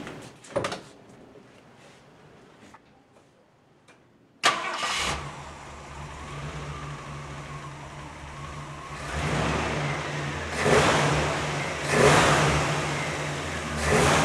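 A thump about half a second in, then the Ford Ranch Wagon's V8 starts abruptly about four seconds in, on its newly fitted Holley 670 CFM Street Avenger carburetor at untouched factory settings. It settles into a steady idle and is revved three times.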